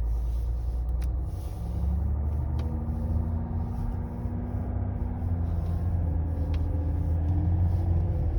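Mercedes-Benz W211 E320 CDI heard from inside the cabin while driving: a low road and drivetrain rumble with a thin whining howl that rises in pitch about two seconds in, holds, then climbs again. This is the strange noise under investigation, which the owner says does not come from the air conditioning.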